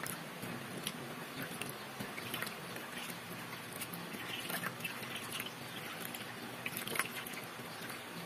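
Water scooped by hand over wet hair, splashing and dripping into a stainless steel basin while shampoo is rinsed out. Small irregular splashes throughout, with a louder splash about seven seconds in.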